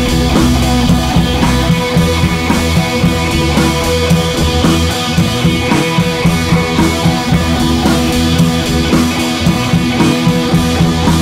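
Background music: a rock track with guitar and a steady drum beat.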